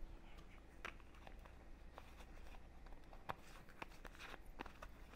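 Faint footsteps and a few scattered light clicks and taps over a low steady hum.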